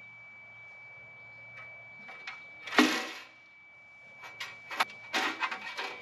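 Sharp metal clanks and knocks from work at a Wood-Mizer LT40 bandsaw mill's saw head after a band break. One loud clank comes about three seconds in and a quick cluster of knocks near the end, over a faint steady high-pitched tone.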